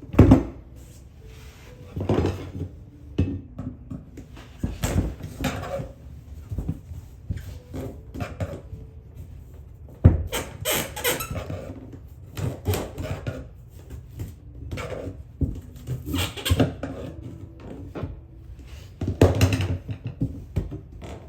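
Hand work on wooden trim: irregular knocks, scrapes and squeaks of tools and wood, with a sharp knock about ten seconds in and a louder run of knocks near the end.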